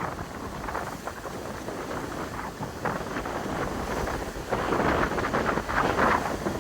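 Wind rumbling on the microphone over surf washing up the beach, with the wash swelling louder about four and a half seconds in and again around six seconds.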